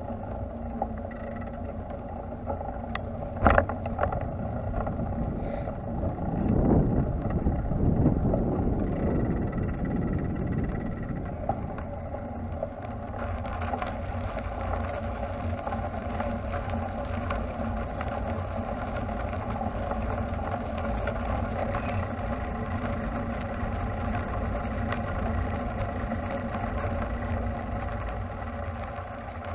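Wind rumbling on the microphone of a camera on the move, with a faint steady hum underneath. A single sharp knock about three and a half seconds in, and a brief swell of rumble a few seconds later.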